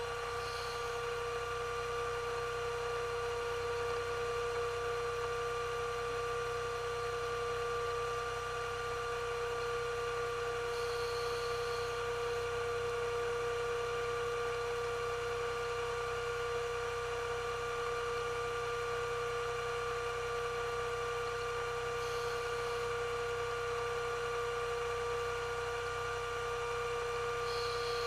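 Diver propulsion vehicle (underwater scooter) motor running at a constant speed underwater: a steady mid-pitched whine with a low hum beneath.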